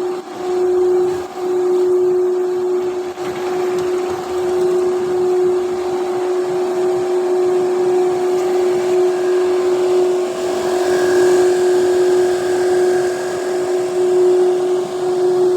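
Twin-screw extruder producing wood-plastic composite, running with a loud, steady hum that holds one constant tone over a noisy background.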